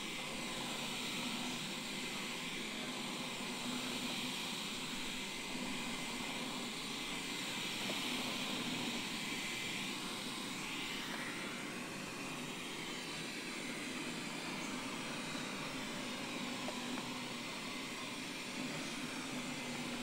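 Wyze robot vacuum running on carpet: the steady whir of its suction fan and brushes.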